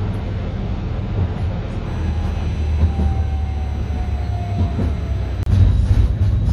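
Tram running, a steady low rumble of wheels and running gear heard from inside the car, with a faint falling whine in the middle. The sound breaks off abruptly about five seconds in and comes back louder.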